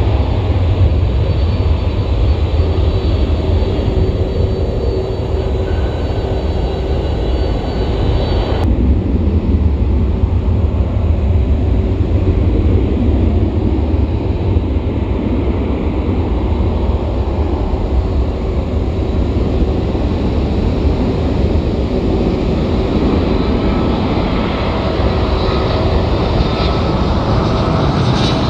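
Airliner engines running loud: a deep, steady rumble with a few thin whining tones over it. The sound changes abruptly about nine seconds in, and a higher hiss builds near the end.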